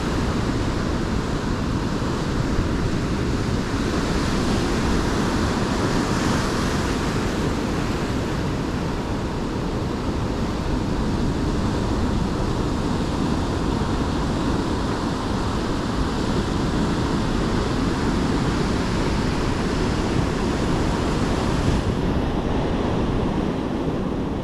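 Rough spring-tide surf breaking and washing on the beach, a steady rush of whitewater that swells a few seconds in, with wind rumbling on the microphone.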